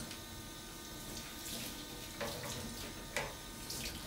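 Kitchen tap running into a stainless-steel sink while hands are washed under it, with a couple of light knocks about two and three seconds in.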